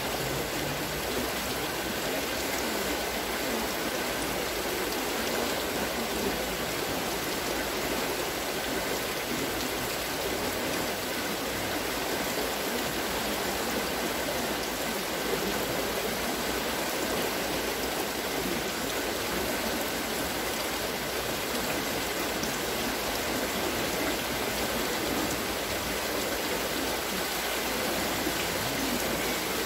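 Steady rush and splash of water at a turning wooden water-lifting wheel, its buckets pouring water as they go round.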